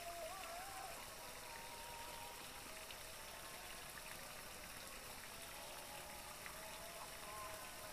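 Faint, steady trickle of a small stream's flowing water.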